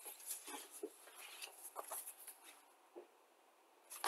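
Paper instruction sheets being handled and shifted on a tabletop: faint, scattered rustles and light taps that die away about three seconds in.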